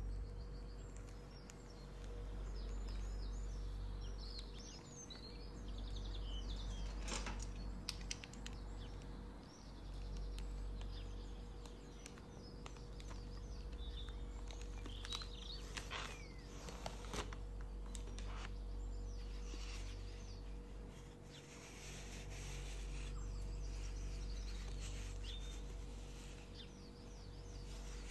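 Birds chirping over a steady low hum of room or outdoor background noise. A few light clicks and rustles come from handling a cellophane-wrapped box, around a quarter and again a half of the way through.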